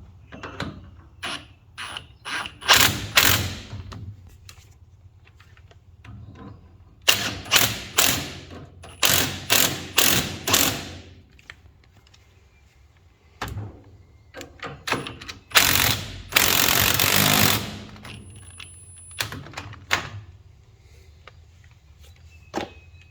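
Hand ratchet wrench clicking in several bursts of rapid strokes as nuts on the Model T's spring shackles are run down, with a longer rasping stretch about two-thirds of the way through.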